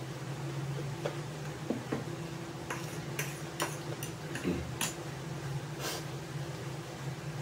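Close-miked eating sounds: scattered short clicks and smacks of chewing and utensils picking noodles off a plate, over a steady low hum.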